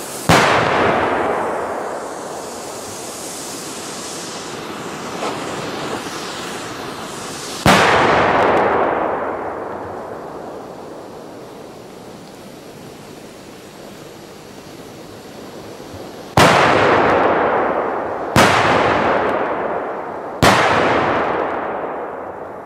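Large firecrackers going off in five loud bangs: one right at the start, one about 8 seconds in, and three more about two seconds apart near the end. Each bang is followed by a long echo that fades over several seconds, and there is a smaller pop about 5 seconds in.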